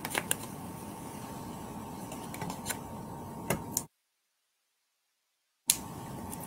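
Sparse small clicks and handling noise from fingers peeling the backing off a paper-backed foam adhesive dot, over a steady hiss with a faint hum tone. About four seconds in, the audio cuts out to dead silence for nearly two seconds, a live-stream audio dropout, then comes back with a sharp click.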